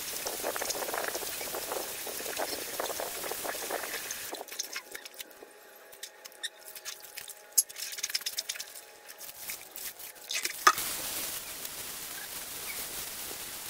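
Hand-rinsing a dyed cotton T-shirt in a plastic basin of soapy water to wash out excess dye: a hose running into the basin and water sloshing at first, then quieter squelching and splashing as the soaked shirt is squeezed, and water streaming again about ten seconds in as the shirt is lifted out dripping.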